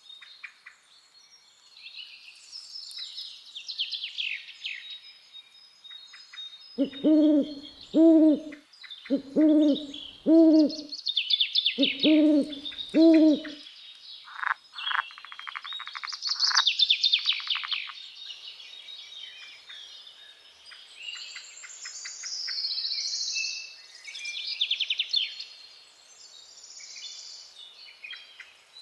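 An owl hooting: six low hoots in three pairs, in the first half, over songbirds chirping and trilling throughout.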